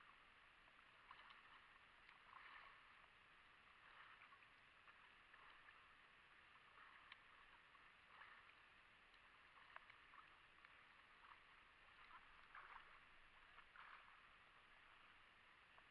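Faint water sloshing and lapping at the surface, with small splashes coming irregularly every second or so as a diver moves through the water.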